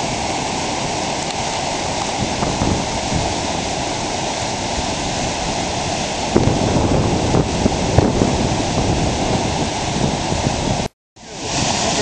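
Swollen, muddy creek rushing and churning over rocks in a steady roar of whitewater, the sound of a stream running high and fast. The sound drops out for a moment near the end.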